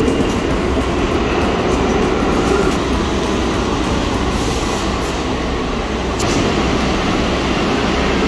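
New York City subway train (an R62A car on the 1 line) pulling into the station and standing at the platform: a steady rumble of wheels and motors on the rails, with a brief burst of higher noise about four and a half seconds in.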